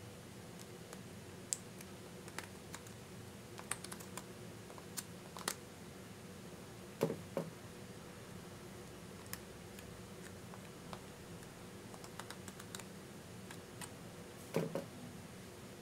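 Scattered small clicks and taps of a metal spatula scraping lipstick out of its plastic tube and knocking against the case, with two duller knocks about seven and fourteen and a half seconds in, over a faint steady hum.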